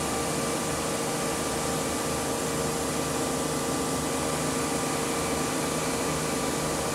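CNC lathe spindle running steadily at about 1600 RPM, turning a copper electrode: an even mechanical whir with a few steady whining tones and no change in level.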